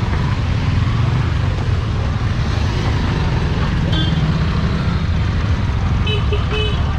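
Engines of a crowd of motorcycles and scooters running at idle and creeping forward, a steady low rumble, with a few short beeps about four and six seconds in.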